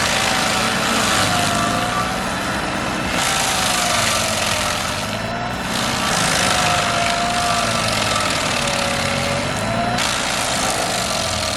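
Stump grinder's engine running under load while its cutting wheel grinds into a stump. A steady engine hum and dense grinding noise, with the engine note wavering slowly up and down as the wheel is swept across the wood.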